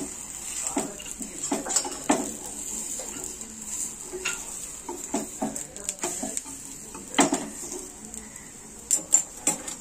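Steel spatula scraping and tapping against an iron tawa as a ghee-brushed naan is pressed and turned, over a light sizzle of ghee. The sharpest clinks come about seven and nine seconds in.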